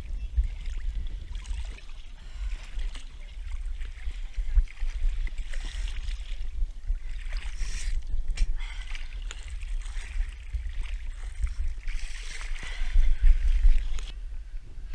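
Water splashing and sloshing in surges as a person wades through lake water, over a steady low rumble.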